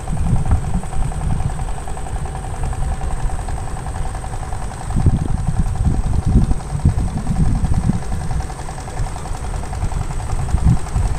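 The small single-cylinder petrol engine of a wooden river fishing boat running steadily, with a heavy low rumble that swells about halfway through.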